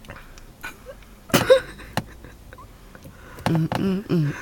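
A woman making deliberately weird vocal noises: a short, sharp sound with a quick pitch bend about a second and a half in, then, from about three and a half seconds, a run of low, wavering, repeated voiced sounds.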